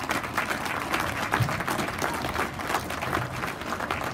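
Audience applauding steadily as a skating routine ends.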